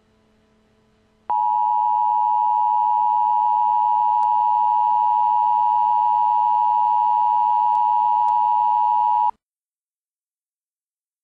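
Emergency Alert System attention signal: a loud, steady electronic tone that starts about a second in, holds for about eight seconds without change, and cuts off suddenly.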